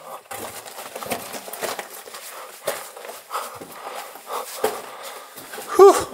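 Irregular scuffing, scraping and knocking of shoes and hands on rock and gravel as a person crawls up out of a narrow cave passage. Near the end comes one short vocal sound that rises and falls in pitch, the loudest sound here.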